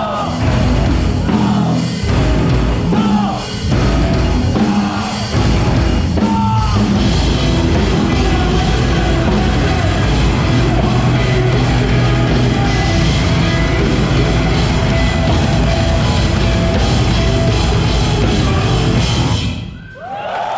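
Rock band playing live with drums and shouted vocals in the first several seconds, then the full band on its own. The song stops abruptly near the end.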